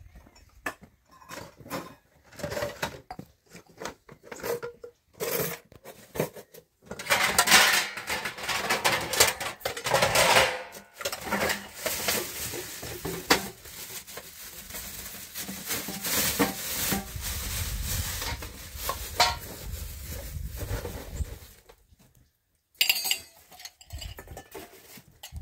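Metal dishes and pots clattering and clinking as they are handled in a plastic basket: a few scattered knocks at first, then a long, busy run of clattering and scraping.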